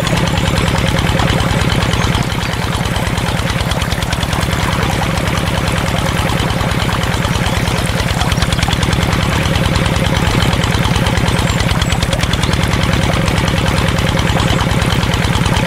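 Diesel water-pump engine running steadily, with a rapid, even chugging.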